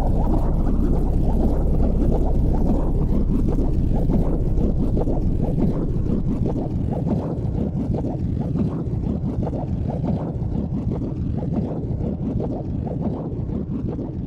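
Low, steady rumble of a car driving, heard from inside the cabin, with some wind noise on the microphone; it grows slowly quieter.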